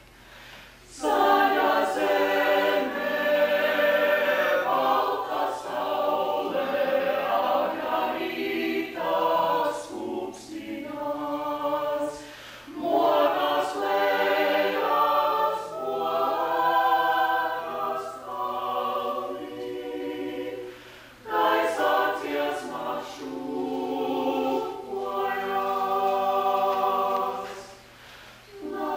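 Small mixed vocal ensemble of men's and women's voices singing unaccompanied in parts. The singing begins about a second in and runs in phrases with short breaks between them.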